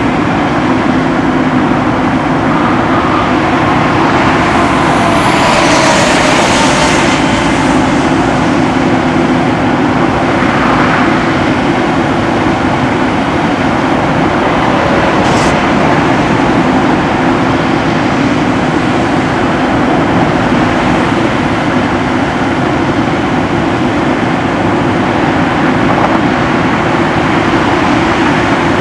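Steady drone of the bucket truck's Cat C13 diesel engine running with the boom raised. A rush of noise swells and fades about five to seven seconds in, and there is a short click around fifteen seconds in.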